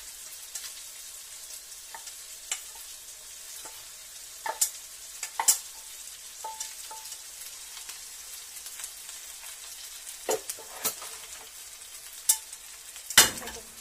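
Cooked rice being scraped out of a metal container into a pot of frying sausage, over a steady sizzle. A spatula knocks against the container and the pot several times, loudest near the end.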